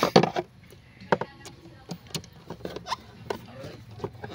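Scattered small clicks and knocks of hands and a tool working the red power wire onto a scooter's battery terminal, with the sharpest knock right at the start.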